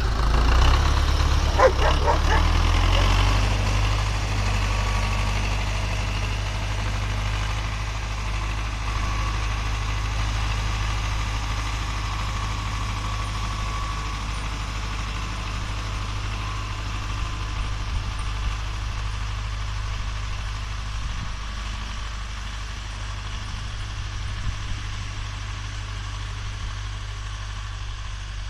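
Tractor engine running steadily while pulling a plough, getting quieter as the tractor drives away.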